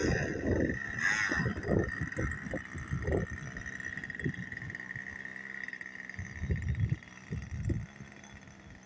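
Small nitro glow engine of an RC model airplane idling with a steady high whine while it taxis. Wind gusts buffet the microphone, and the engine sound drops away about seven seconds in.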